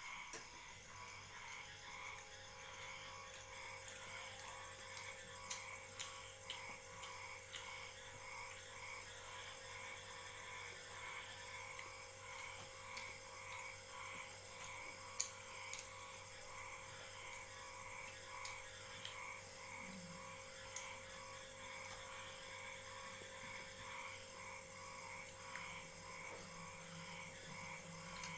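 Frogs croaking faintly in a steady rhythm, about two to three croaks a second, over a steady hum. A few sharp clicks stand out, the loudest about halfway through.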